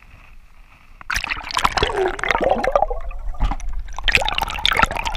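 Water splashing and gurgling right at the microphone, starting about a second in, with many small clicks and bubbling gurgles.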